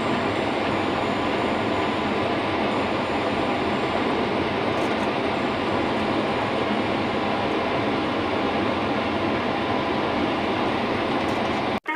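Wheel loader running, a steady, even mechanical noise with no change in pace, which cuts off suddenly near the end.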